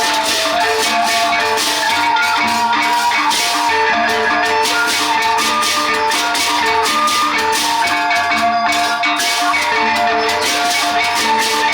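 Gendang beleq ensemble playing: big drums and clashing cymbals keep up a dense, busy beat while short pitched metallic notes repeat a melodic pattern underneath. Steady and loud throughout.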